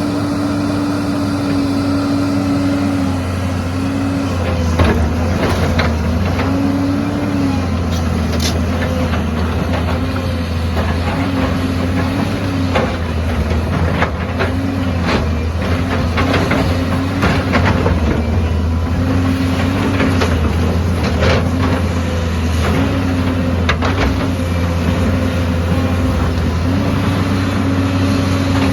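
Heavy earthmoving machine's diesel engine running under changing load, its note stepping up and down every second or two, with scattered metal clanks and knocks from the machine working.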